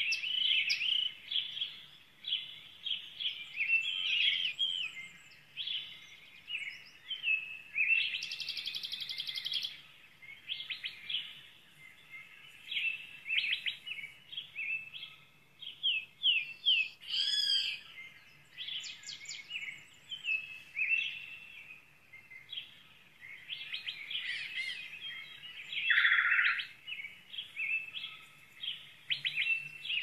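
Small songbirds singing, a dense run of short chirps and trills with one buzzy trill about eight seconds in.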